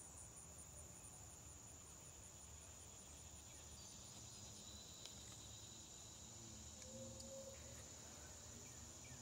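Faint insect chorus: a steady high trill with a softer chirp pulsing about three times a second.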